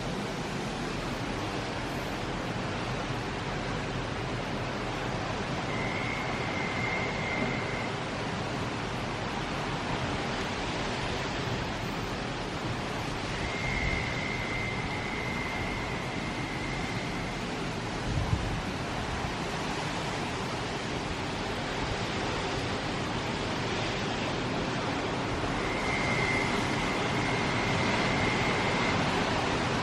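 Hurricane wind with rain, a steady rushing noise that grows slightly louder near the end. A thin high steady tone sounds three times over it, each a couple of seconds long, and there is one brief low thump about two-thirds of the way through.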